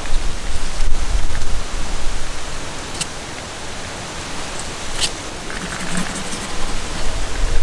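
A steady rushing noise with a low rumble that swells and fades, broken by two short sharp clicks about two seconds apart.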